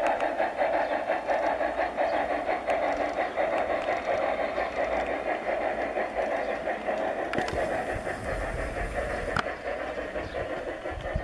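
Large-scale garden-railway model steam locomotive running along the track with its coaches: a steady mechanical hum with rapid, irregular ticking.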